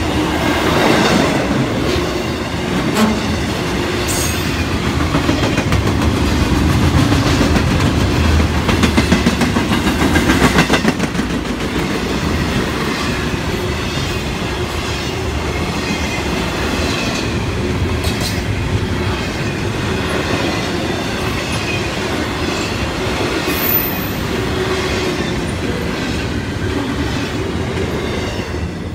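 Intermodal freight train rolling past at close range: a steady rumble, with wheels clicking over the rail joints. The last car goes by near the end and the sound eases off.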